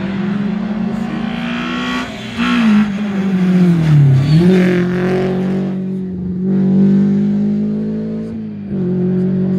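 Volkswagen Polo rally car's engine under hard driving as it comes past on a rally stage: the engine note falls, jumps sharply back up about four seconds in where it is loudest, then holds steady, with a brief dip near the end.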